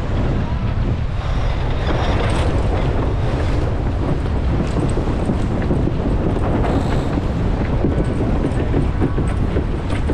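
Strong wind buffeting the microphone over water rushing past the hull of a sailboat moving at about 7 to 8 knots in 18 knots of wind.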